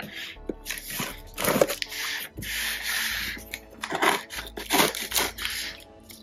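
A small cardboard shipping box handled and turned over, giving several short rustling, scraping sounds, over faint background music.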